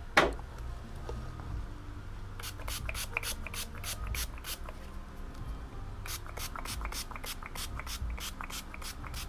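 Hand-pumped spray bottle of soap and water squirted in two quick runs of rapid spritzes, several a second, wetting hands for a wet grip-pad install. A brief thump sounds right at the start.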